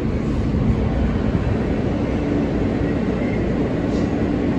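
R160 subway train heard from inside the car as it pulls into a station: a steady rumble of the wheels on the rails, with a low even hum from the propulsion underneath.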